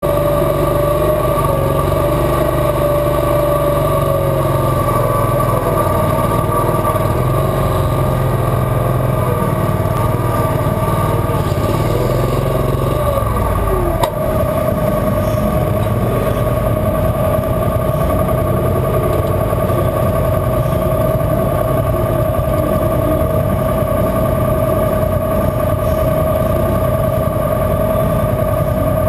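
Garden pulling tractor's engine running steadily at close range, its pitch wavering for a while in the first half, with a single sharp click about halfway.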